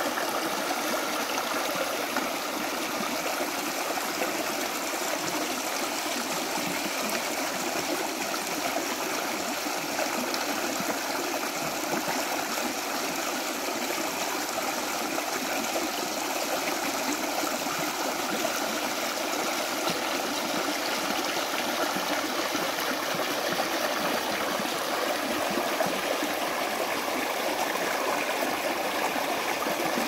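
Shallow rocky stream rushing over stones and small drops, a steady, unbroken flow of water.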